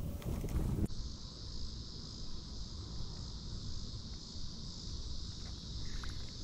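Wind noise on the microphone cuts off about a second in, giving way to a steady, high-pitched chorus of insects over a faint low rumble.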